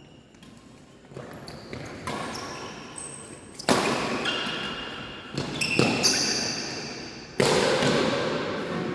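Badminton rally in an echoing sports hall: about six sharp racket-on-shuttlecock hits, each ringing on in the hall. Short high squeaks come between the hits. The loudest hits come a little before halfway and again near the end.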